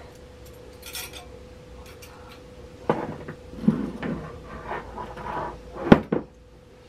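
Kitchen utensils and containers being handled on a counter: scattered knocks, clinks and rubbing, with the loudest a sharp clack about six seconds in. A faint steady hum runs underneath.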